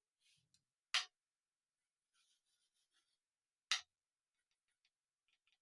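Two short, sharp clicks of a tool set down on the frets of a bare guitar neck, with faint scraping in between as it is moved along the frets to find high ones.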